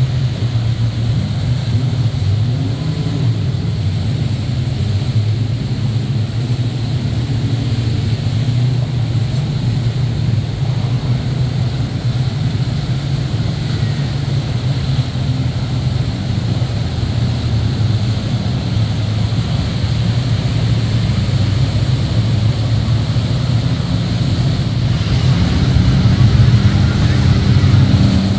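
Many jet skis running at speed together, a steady drone of engines over churning water, growing louder near the end as a group passes close.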